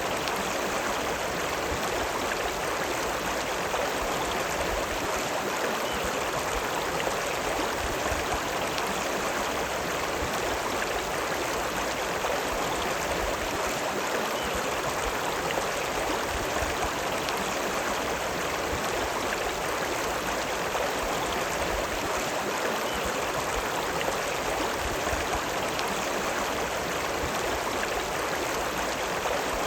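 River Lune running: a steady, unbroken rush of flowing river water.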